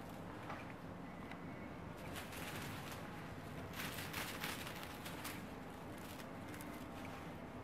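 Faint crackling rustles over quiet room noise, in a short cluster about two seconds in and a longer, louder one around four to five seconds in.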